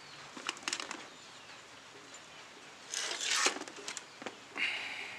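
Handling noise from a TV's circuit board being picked up and turned over: a few light clicks, then a rustling scrape about three seconds in, and a shorter scrape near the end.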